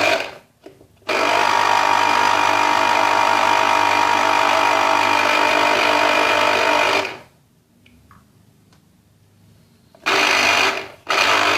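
Electric citrus juicer's motor running while oranges are juiced, in bursts: a short one at the start, a long steady run of about six seconds, then two more short runs near the end.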